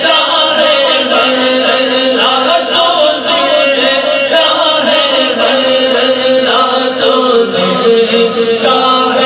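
A man chanting a naat, a devotional Urdu poem in praise of the Prophet, into a handheld microphone, in long held melodic lines that bend in pitch.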